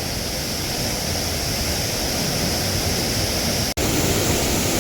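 Waterfall pouring down a rocky gorge: a steady, even rush of water, broken by a momentary dropout about three-quarters of the way through.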